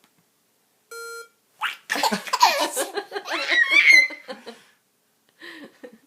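A short electronic beep, then a baby laughing hard for about three seconds, delighted by the beep.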